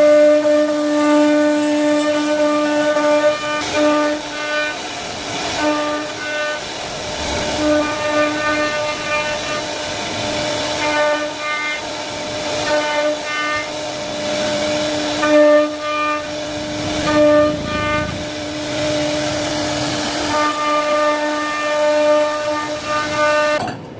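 Chinese-made CNC wood router spindle whining at a steady pitch while its bit carves a profile into a wooden panel. Its upper overtones come and go every second or so. The sound cuts off suddenly near the end.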